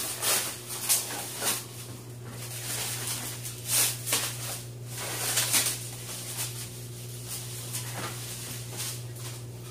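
Clear plastic wrap rustling and crinkling as it is peeled and pulled off a metal ring, in a string of short rustles, the loudest about four and five and a half seconds in. A steady low hum runs underneath.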